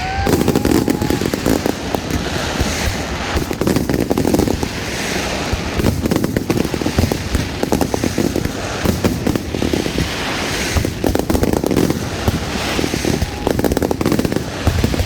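Fireworks display: a continuous fast barrage of bangs and crackles with no pauses.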